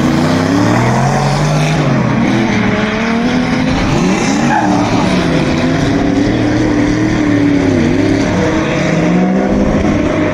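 Drift cars sliding sideways through a corner, engines revving up and down with the throttle as the rear tyres spin and skid. More than one engine is heard at once, their pitches rising and falling over each other.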